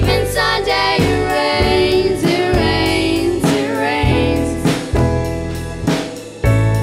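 A small live band playing a song: a girl sings the melody over a drum kit, electric guitar and upright bass, with drum hits keeping a steady beat.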